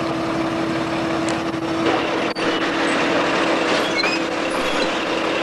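Lxd2 narrow-gauge diesel locomotive idling with a steady hum. The sound dips briefly about two seconds in.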